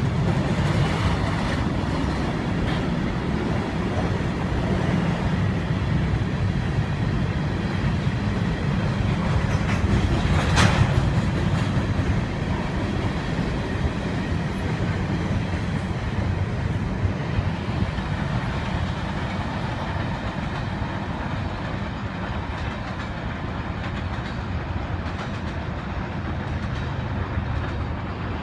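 Freight train of covered hopper and tank cars rolling past in a steady rumble, with one sharp knock about ten seconds in. The sound slowly eases toward the end as the last cars go by.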